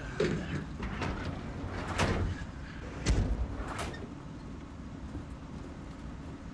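A van's doors and body clunking as people climb in: several knocks, the loudest a heavy door slam about three seconds in. After that a steady low engine hum.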